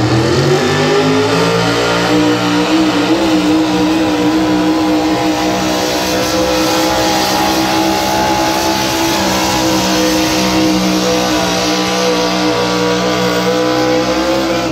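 Pickup truck engine pulling a weighted sled: it revs up over the first couple of seconds, then holds at high revs under full load. The sound cuts off abruptly at the end.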